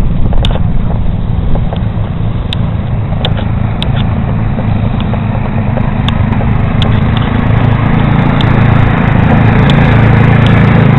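A motor vehicle's engine running with a steady low drone that grows a little louder in the second half, with scattered sharp clicks over it.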